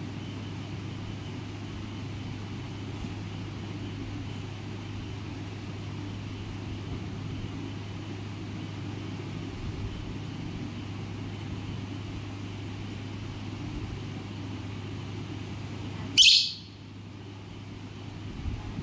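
A parrot gives one loud, short, shrill screech that sweeps downward in pitch about 16 seconds in, over a steady low hum.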